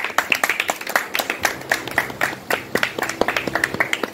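A small audience applauding, with dense, irregular hand claps.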